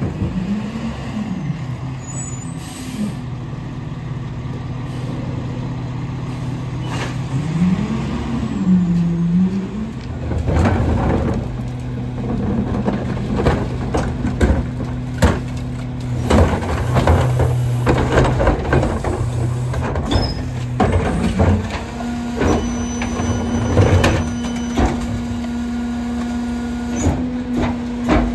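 Battle Motors garbage truck running with its McNeilus rear-loader packer working. A whine rises and falls twice in the first ten seconds, then carts bang against the hopper and trash drops in with repeated clatters and knocks, and near the end the engine holds a higher, steady tone.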